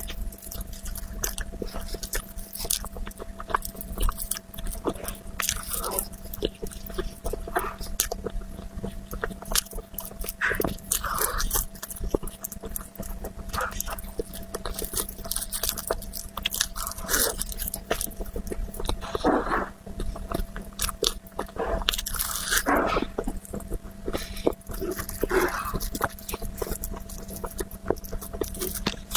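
Close-miked eating of a chocolate dessert: bites with some crunching, chewing and wet mouth clicks, continuing throughout, over a faint steady hum.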